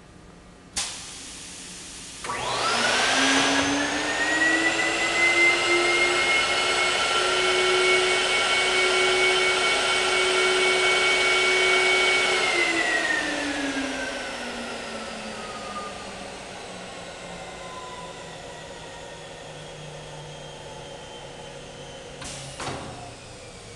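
Vacuum motor of a Visual Packaging USA skin-packaging machine. After a click, it starts about two seconds in with a rising whine and runs steadily for about ten seconds while the film is drawn down over the board. It then winds down with a long falling whine, and a short clunk comes near the end.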